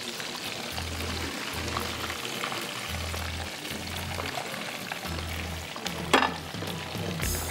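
Oil sizzling and crackling in a wok as food fries, with background music carrying a steady low beat. A single sharp click about six seconds in.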